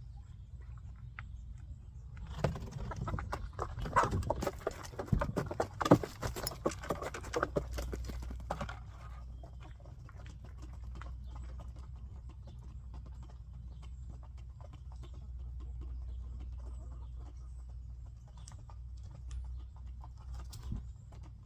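A flock of chickens running, a dense patter of many feet from about two seconds in until almost nine seconds, then only faint scattered ticks over a steady low rumble.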